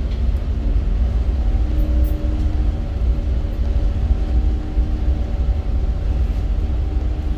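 River towboat's diesel engines running steadily: a deep, even low rumble with faint steady hum tones above it.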